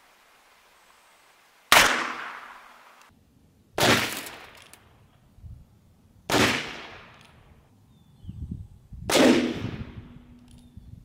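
Short-barreled .22 LR revolver firing Aguila standard-velocity rounds: four sharp reports about two to three seconds apart, each trailing off over about a second.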